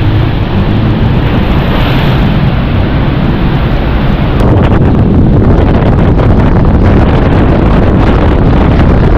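Loud wind buffeting the microphone and rushing water on a boat ride beneath Iguazu Falls, a steady roar that grows fuller and crackly about four and a half seconds in.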